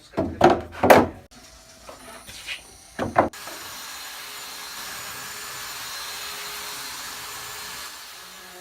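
A few sharp wooden knocks and clatters, then from about three seconds in a steady, even whooshing noise from a running shop machine.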